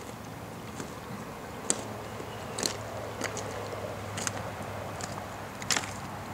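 Footsteps in wading boots on creek-bed cobbles and gravel: a handful of sharp clicks and crunches of stone on stone, about one a second, over the steady wash of the creek and a low hum.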